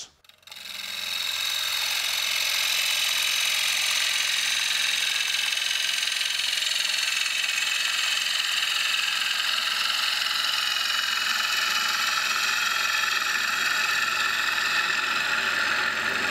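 Turning gouge taking a facing cut across a wooden disc spinning on a wood lathe, flattening its face: a steady hiss of shavings being cut over a low hum from the lathe. It builds up in the first second or two and fades out near the end.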